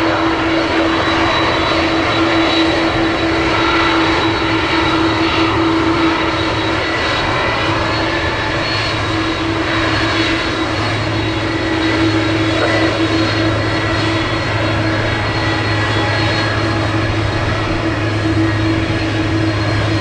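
Airliner engines running steadily: a constant wash of noise with a steady whine, and a low hum that grows stronger about halfway through.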